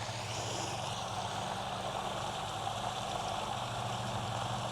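A motor engine idling steadily, a low, even hum.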